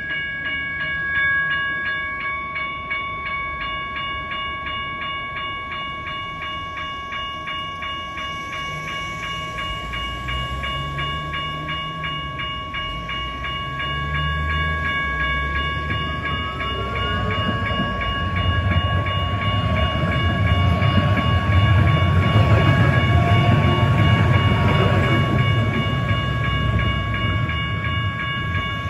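Railway crossing bells ringing in fast, even strokes as a C-Train light-rail train arrives. Its low rumble builds from about halfway and is loudest near the end, with a short rising whine a little after halfway.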